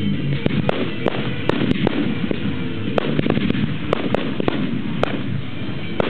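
Fireworks display with aerial shells bursting in quick succession: a run of sharp bangs, about two or three a second, over a continuous rumble.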